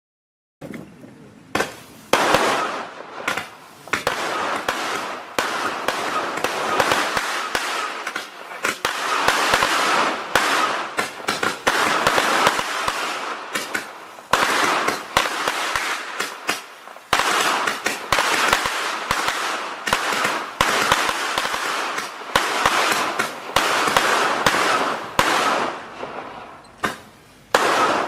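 Consumer fireworks going off in quick succession: a dense crackle packed with sharp bangs, starting about half a second in and running on with only brief dips.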